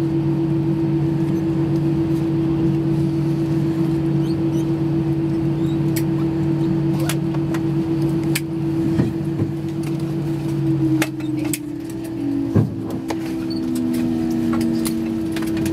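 Cabin sound of an Airbus A320 taxiing after landing, heard from a window seat over the wing: a steady engine and cabin hum with scattered small clicks and rattles. About eleven seconds in, the lower part of the hum stops and a tone slides lower in pitch, with a single knock just after.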